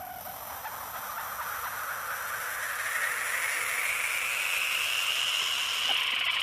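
A hissing, rushing noise that rises in pitch over the first three seconds, then holds steady while growing louder.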